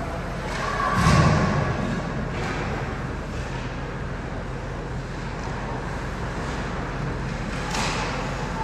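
Ice hockey game in a rink: a steady background hum, a heavy thud about a second in, and a sharper knock near the end.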